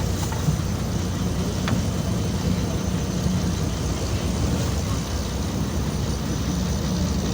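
Motor fishing launch's engine running steadily under way, a low throb under an even hiss.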